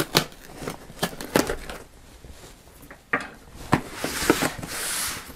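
A letter opener slitting the packing tape on a cardboard box, with scattered clicks and scrapes. About four seconds in comes a longer rasping tear as the tape and cardboard flaps are pulled apart.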